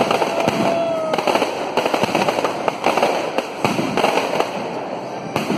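Aerial fireworks bursting overhead: a dense run of bangs and crackles, with a steady whistle during the first second.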